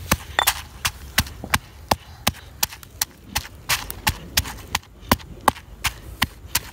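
Pestle pounding red chillies and coarse salt in a stone mortar: sharp, evenly paced knocks, about three a second.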